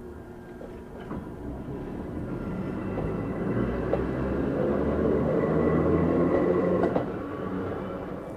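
Ohmi Railway 220 series railcars coupled in tandem running on the track, their nose-suspended traction motors and gears whining over the rail noise; the sound swells to its loudest and then drops off sharply about seven seconds in.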